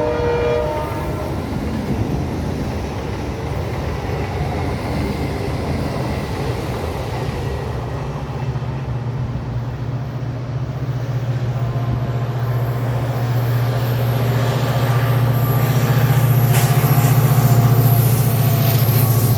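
A multi-tone train horn cuts off in the first second. Then the low, steady hum of an Indian Railways WDP4D diesel locomotive's two-stroke EMD engine grows louder as the train approaches. Near the end it is loudest, with a few clanks from the passing train.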